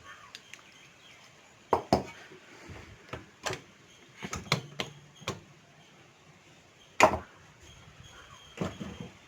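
Irregular sharp clicks and knocks of a vintage Godrej typewriter's metal parts being handled as its cover clips are released, about ten in all, the loudest about seven seconds in.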